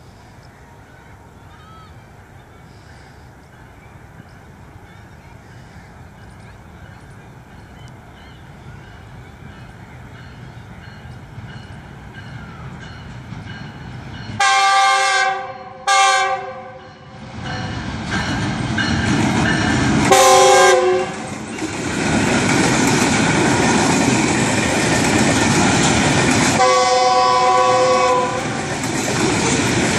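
GEU-45 class diesel-electric locomotive hauling a freight train: a faint rumble grows as it approaches, then its horn sounds, two short blasts about halfway through, another a few seconds later and a longer one near the end. In the second half this is over the loud, steady rolling rumble of the box wagons passing close by.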